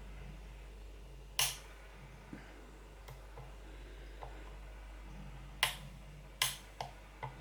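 Sharp metallic clicks of a disc-detainer pick working the discs of an Abloy Disklock Pro cam lock, as the discs are being picked: five distinct clicks spread out, with fainter small ticks between.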